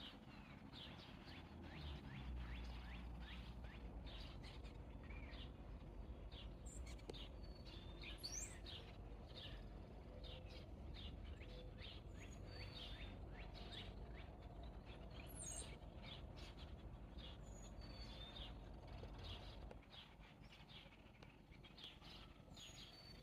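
Faint birdsong: many short chirps from several small birds. Underneath is a low steady rumble that stops a few seconds before the end.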